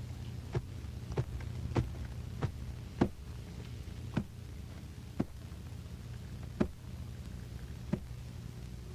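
A series of about nine sharp knocks, evenly spaced roughly every half second at first, then coming slower and further apart. A steady low hum runs under them.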